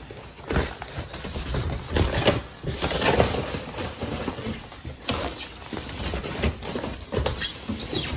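Cardboard and corrugated paper packing rustling, scraping and knocking irregularly as a boxed computer is pulled out of its shipping box, with a couple of short squeaks near the end.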